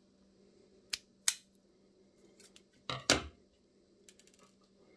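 Scissors snipping 10-pound monofilament fishing line: two sharp snips about a second in, then a louder double knock with a dull thud about three seconds in, and a few faint ticks.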